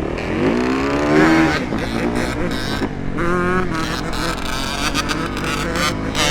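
Dirt bike engines revving hard as the bikes accelerate. The pitch climbs in surges, about half a second in, again around three seconds, and near the end, over the steady low running of other engines.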